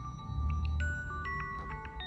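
Oppo A71 smartphone ringtone playing: a melody of clear, high notes, a new note every quarter second or so.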